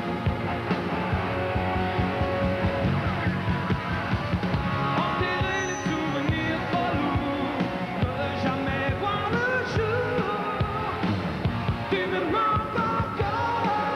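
A live rock band playing at full volume, with electric guitar, bass and a driving drum beat, and a man singing over it from about five seconds in.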